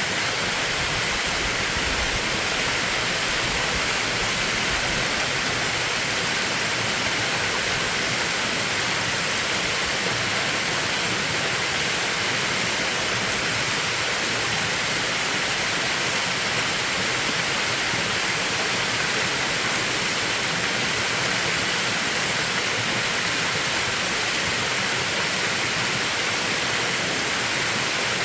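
Mountain valley stream with water rushing steadily and unbroken.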